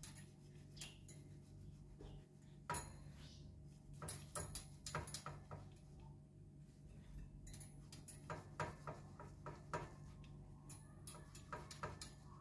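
Knife sawing horizontally through a sponge cake on a metal wire cooling rack, with scattered light clicks of the blade and cake against the rack wires in several short clusters. A faint steady low hum runs underneath.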